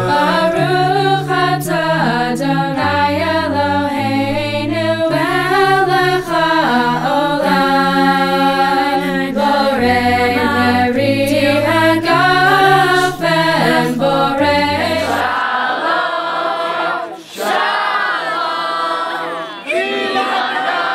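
A cappella vocal music: a group of voices singing in harmony over a sung bass line that steps to a new note about every second. About fifteen seconds in the music stops and a crowd starts shouting and cheering.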